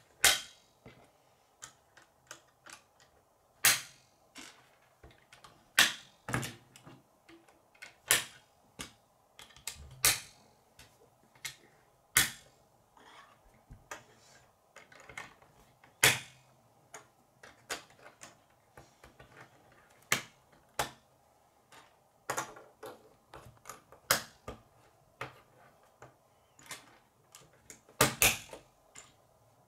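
Plastic K'nex rods and connectors clicking and snapping together, with pieces knocking on a wooden tabletop: sharp, irregular clicks, a loud one every second or two with smaller ones in between.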